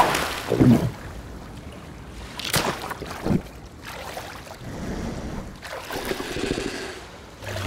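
Cartoon sound effects of water splashing as a seal's tail flicks in the sea, then gentle lapping water with a few short splashes.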